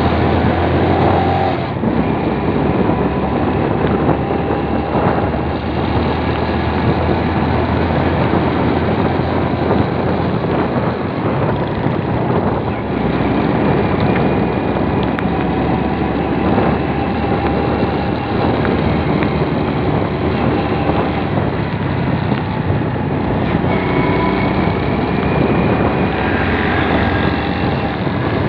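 Steady engine and road noise of a vehicle driving along a road, heard from on board.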